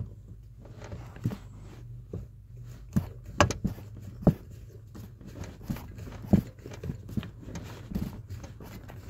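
Screwdriver and screw being worked by hand into a plastic interior trim panel: irregular clicks and knocks of metal on plastic, loudest in a cluster a few seconds in, over a steady low hum.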